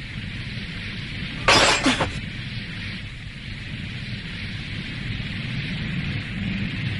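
A single sudden crash-like impact sound effect about a second and a half in, over a steady background hiss and low rumble.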